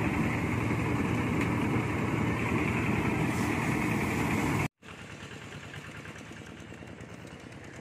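Engine-driven mobile rice thresher running steadily with an even, rapid pulse. It cuts off abruptly about two-thirds of the way through, and a quieter engine runs after it.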